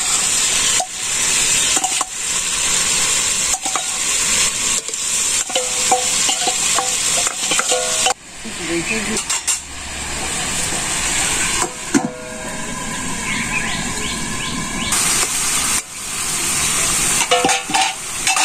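Food sizzling as it fries in a pan, with a spatula scraping and knocking against the pan as it is stirred. The sizzle dips briefly about eight seconds in.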